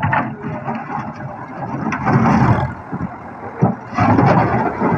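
Russian-made tractor's diesel engine running under load as its front-loader bucket pushes into a pile of broken bricks, with bricks scraping and clattering. It gets louder twice, about two seconds in and again about four seconds in.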